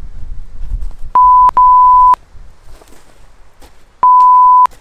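Three loud, steady beeps at a single pitch, the first two almost back to back about a second in and the third near the end: censor bleeps laid over the sound track.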